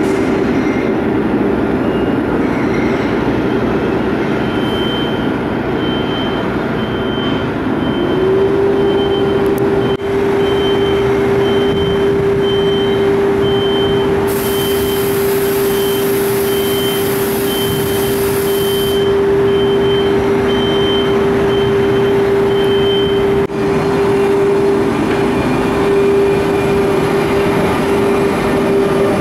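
Renfe Cercanías class 450 double-deck electric train moving through the station, with a steady electric hum that sets in about eight seconds in and holds. A high beep repeats a little more than once a second through the middle, and a burst of hiss lasts about five seconds.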